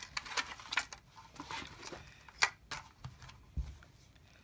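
Faint clicks, taps and rustles of the plastic belt and cap rivets being handled and positioned on a wooden block, with a couple of sharper taps about two and a half and three and a half seconds in.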